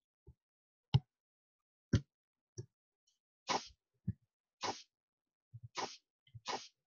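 Sharp single clicks about a second apart from the presenter's computer as the lecture slides are changed, then four short breathy puffs close to the microphone in the second half.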